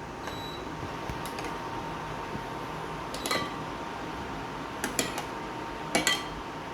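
Metal utensil clinking sharply against a pot and bowl about five times, as blanched tomatoes are lifted out of their hot water, over a faint steady hum.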